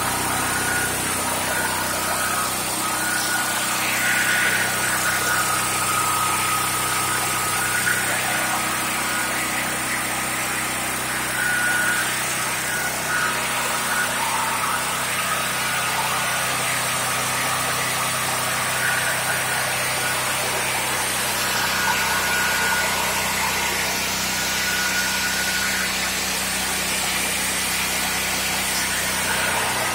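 Firman H07552 dual-fuel generator's single-cylinder engine running steadily on propane.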